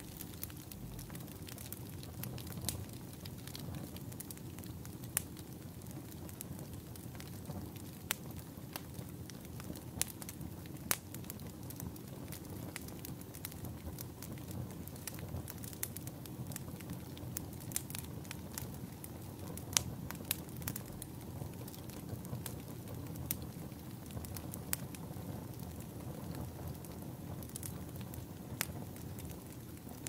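Crackling wood fire: a steady low rumble of burning logs with irregular sharp pops and crackles scattered throughout.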